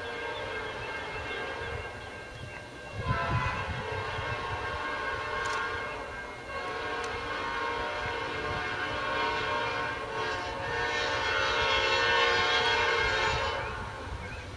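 Norfolk Southern diesel locomotive's multi-chime air horn sounding two long blasts. The first lasts about three seconds and the second about seven, growing louder near its end as the train approaches, over the low rumble of the locomotive.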